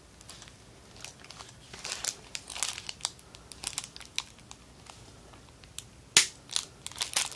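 Plastic crinkling and crackling with scattered sharp clicks, the loudest about six seconds in and a cluster near the end, as the plastic case of a DIY 18650 power bank box is handled.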